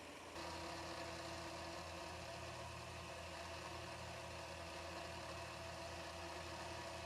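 Belt grinder's electric motor running at a steady hum.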